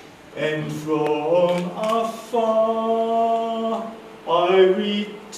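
A man singing unaccompanied into a microphone: three sung phrases, the middle one a long held note.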